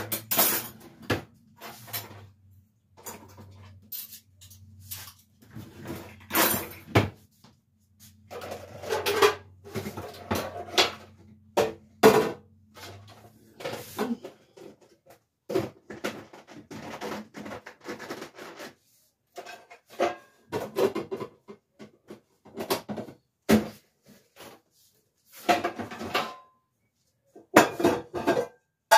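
Dishes clinking and clattering as they are handled and put away, in irregular knocks and clinks. A low steady hum runs underneath and stops about halfway through.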